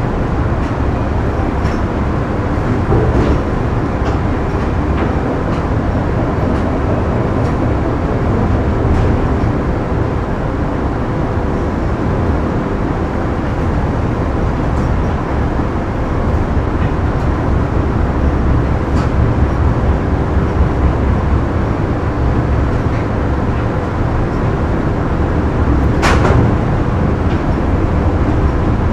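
Factory machinery ambience: a steady, loud mechanical rumble with a constant hum, scattered light clicks, and one sharper clank about 26 seconds in.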